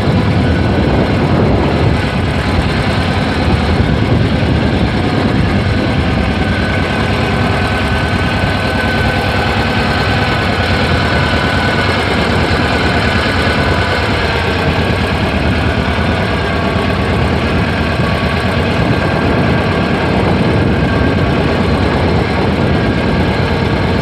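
Small wooden ferry boat's engine running steadily while the boat is under way, mixed with the rush of water.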